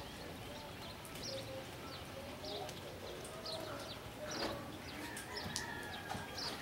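Birds chirping and calling over steady background noise: many short high chirps, with a few longer held calls lower down.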